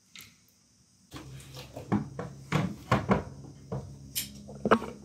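Irregular knocks and clatters, some sharp and loud, over a low steady hum that comes in about a second in.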